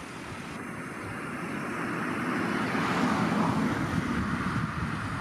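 Nyxair ATR 42-500's two Pratt & Whitney PW127 turboprop engines and propellers at climb power as the airliner flies away just after leaving the runway. A steady, noisy drone that swells to its loudest about three seconds in, then eases slightly.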